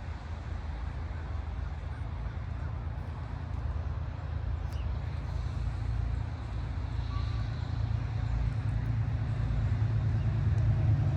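Low rumble of an approaching Amtrak P32AC-DM diesel locomotive, growing steadily louder as it nears.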